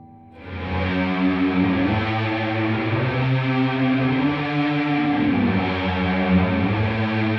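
Distorted electric guitar played through a DigiTech Polara reverb pedal on its Reverse setting, fed by a Holy Stain distortion pedal: held notes and chords that swell in about half a second in, then move down and back up in pitch.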